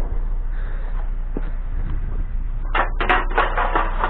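Steady low rumble of a vehicle driving, heard from inside the cab, with a short stretch of voice near the end.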